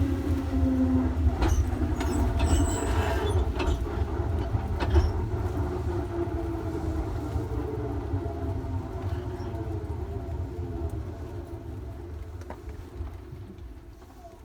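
Electric train's traction motors whining over a low running rumble, their tones falling slowly in pitch as the train slows, with a few rail-joint clicks early on; the whole sound fades steadily toward the end.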